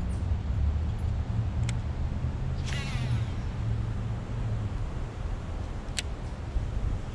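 Steady low outdoor rumble, with two sharp clicks and a brief raspy chirp about three seconds in.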